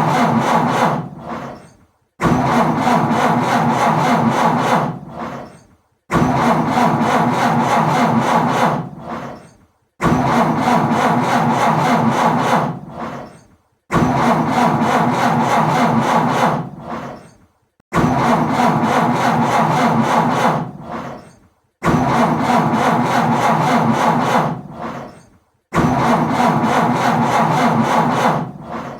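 Car engine cranked on its starter motor without catching, failing to start. The attempts repeat about every four seconds, each beginning suddenly, running about three seconds and then dying away.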